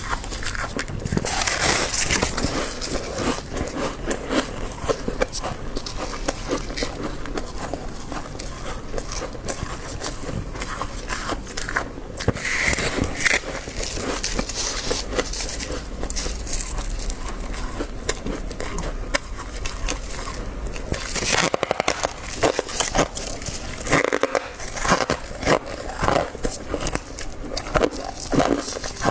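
Soft frost crunching and crackling as it is handled and bitten, a dense run of small crackles. Louder, more separate crunches come in the last third.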